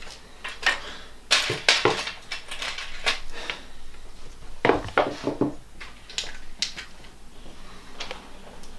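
Metal knives and tools clinking and clattering as they are picked up and put down on a table, in several separate clusters of knocks and scrapes.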